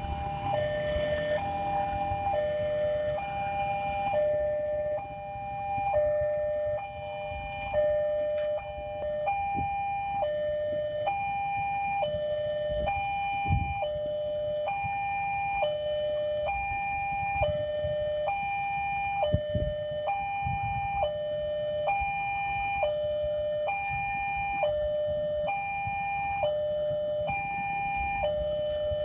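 Railway level-crossing warning alarm sounding while the barrier is down, the sign that a train is approaching. It is an electronic two-tone signal that alternates evenly between a higher and a lower pitch, about every 0.7 seconds.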